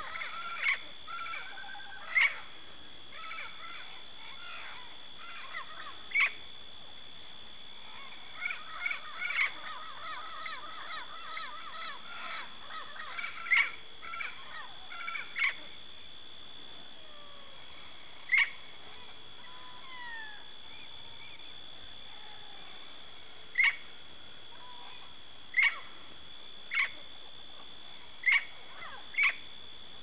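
Yellow-faced parrots (Alipiopsitta xanthops) calling: short, sharp, loud single calls every few seconds, with a stretch of softer chattering and warbling in the middle.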